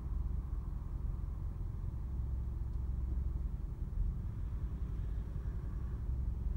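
Steady low rumble inside a car's cabin while the car sits stopped, its engine idling.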